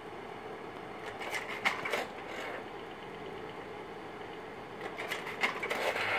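Kodak 760H Carousel slide projector running with a steady hum, cycling through two slide changes. Each change is about a second of mechanical clicks and clacks as the tray advances and the next slide drops into the gate. The first comes about a second in, the second near the end.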